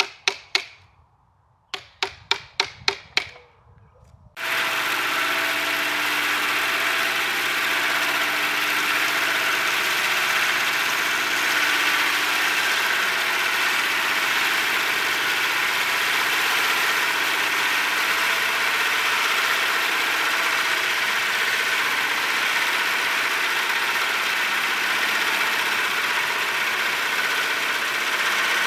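About seven sharp, quick knocks, then, about four seconds in, the sudden start of a steady, loud run of a shop-built wooden band saw mill's blade cutting through a hard maple log about 12 inches thick. It is a tough, slow cut.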